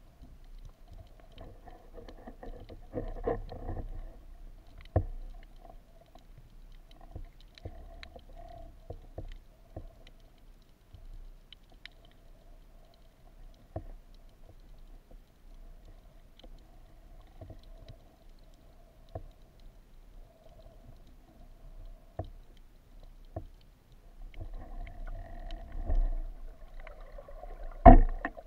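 Underwater sound heard through an action camera's waterproof housing: a muffled wash of water movement with scattered sharp clicks and knocks, and one loud knock near the end.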